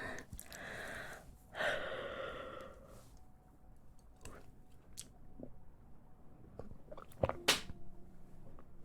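A girl's two soft, breathy burps, one right after the other, each about a second long, followed by scattered small mouth clicks and smacks, with one sharper click near the end.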